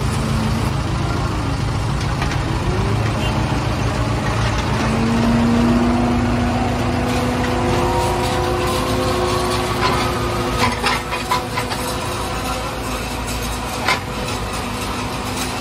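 Tractor engine and tractor-mounted forage harvester running loud and steady while chopping standing corn for silage, with the engine pitch rising a little in the middle. A few sharp knocks come in the second half.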